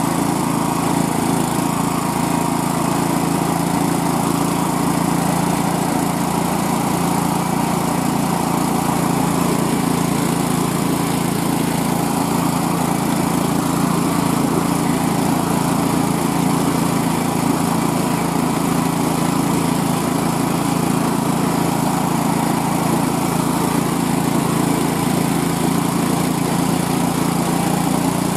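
Small single-cylinder gas engine of a homemade motorized snow sled running steadily under load as the sled pushes through deep, unpacked snow.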